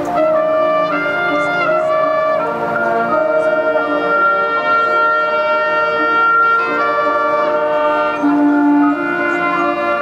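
Marching band playing: brass and woodwinds holding long, sustained chords that shift to new chords a few times.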